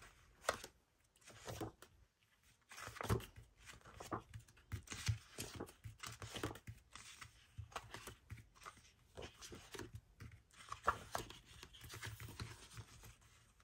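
Paper sticker-book pages being leafed through by hand: faint, irregular rustles and flicks of the sheets as they are lifted and turned.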